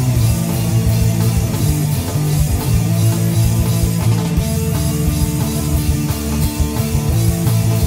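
Recorded rock song: guitar and drum kit playing over sustained low bass notes, with a steady beat.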